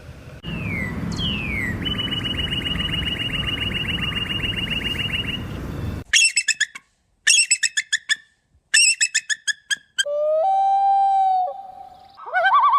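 A run of different bird calls, apparently cut together. It opens with two falling whistles and a fast even trill over background hiss. After a sudden cut come three bursts of rapid, harsh repeated notes, then a long lower call and, near the end, warbling notes.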